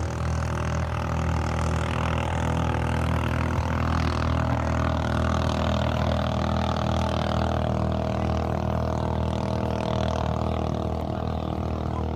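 Racing outrigger boat's engine running steadily at an unchanging pitch.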